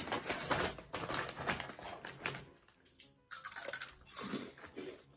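Crisp shrimp chips crunching as they are bitten and chewed, an irregular crackle of small sharp cracks with a brief lull about three seconds in.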